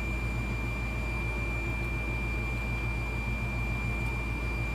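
Cooktop running: a steady high-pitched electronic whine over a low, even hum.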